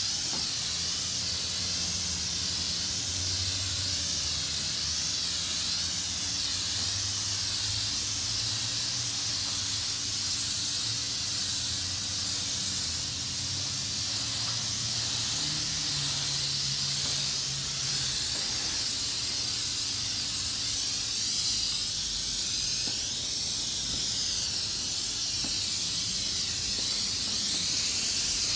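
Self-serve car wash spray wand hissing steadily as it sprays pre-soak onto a car's glass and paintwork.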